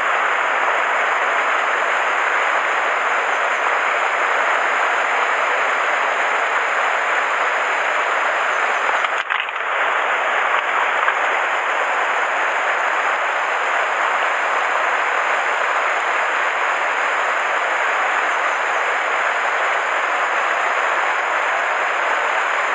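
Mountain stream rushing steadily over a small rocky cascade, with a brief dip in the sound about nine seconds in.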